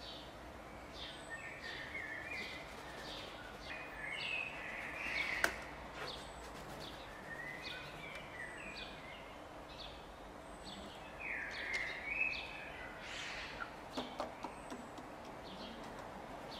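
Birds calling in short, repeated chirps and chatter over a faint outdoor background, with a single sharp click about five and a half seconds in.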